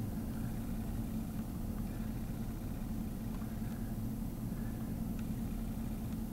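Truck engine idling, a steady low hum that holds an even level throughout.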